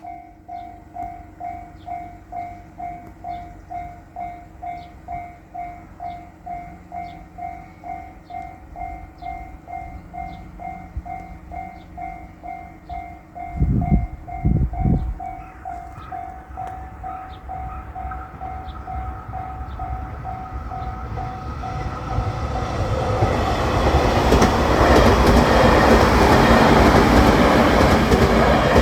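Japanese level-crossing warning bell ringing its steady electronic 'kan-kan' at just under two strokes a second. About 14 s in there are two loud low blasts. A train then approaches and passes through the crossing, its running and wheel noise building to the loudest part of the clip and covering the bell.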